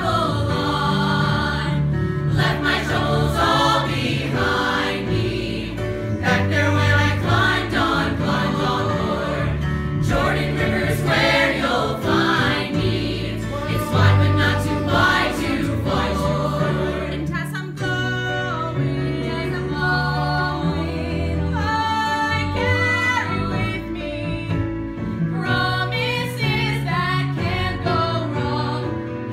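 A choir of teenage voices singing together in chorus over a steady low accompaniment. A little past halfway, the full chorus gives way to one or two voices singing.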